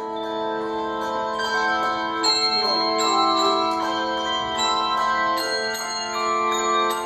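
Handbell choir playing: chords of ringing handbells, new notes struck about every second over the ring of earlier ones.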